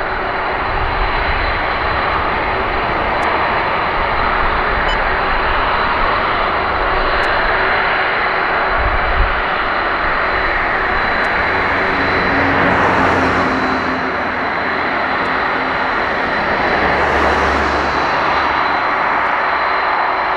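Boeing 747-400F freighter's four jet engines running at taxi power as the aircraft swings round onto the runway: a steady rush of engine noise with a thin, steady high whine over it.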